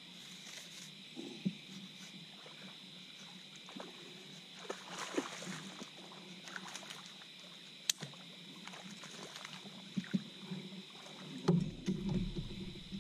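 Water sloshing, small splashes and knocks around a small fishing boat as a hooked flathead catfish is fought at the boatside, with a sharp click about eight seconds in and a heavier splashing commotion near the end, over a steady high hum.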